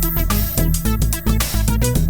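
Upbeat electronic background music with a steady beat, bass and synth notes.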